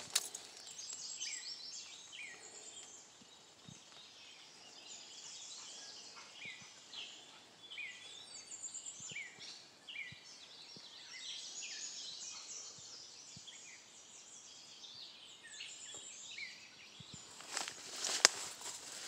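Several songbirds calling and singing at once, a continual scatter of short high chirps and whistled notes. Near the end, rustling and a few sharp knocks, like footsteps through leafy undergrowth.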